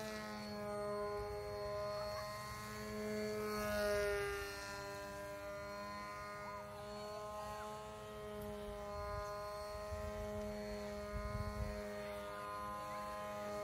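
Electric motor and propeller of a homemade foam RC plane buzzing steadily in flight. The pitch drifts slightly, with a brief dip about four seconds in.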